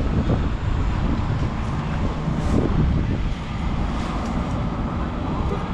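Steady wind rumble on the microphone of a moving electric bike, mixed with the noise of road traffic around it.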